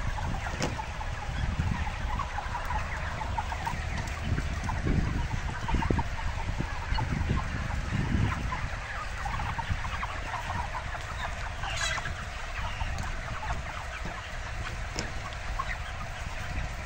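A large flock of broiler chickens calling continuously, many short overlapping clucks blending into one steady chorus.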